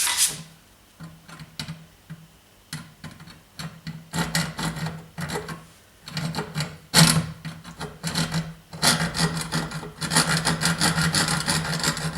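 Metal being sawn by hand: scraping strokes cutting a slot into the stub of a sheared bolt in a Whirlpool washing machine's drum shaft, so it can be turned out with a flat screwdriver. The strokes are scattered at first, then become a steady run of quick back-and-forth strokes from about nine seconds in.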